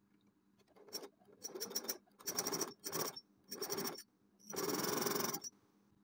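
Domestic electric sewing machine stitching a placket strip in about six short runs, each starting and stopping, the last the longest at about a second.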